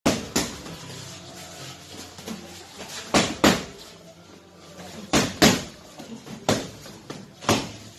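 Boxing gloves smacking as punches land in sparring: three quick pairs of hits, like one-two combinations, then two single hits.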